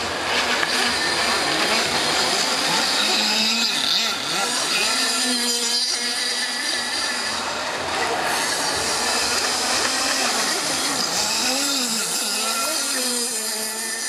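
Radio-controlled speedboats racing on a pool, their small motors whining and rising and falling in pitch as they speed up and turn, over a steady rush of water and spray.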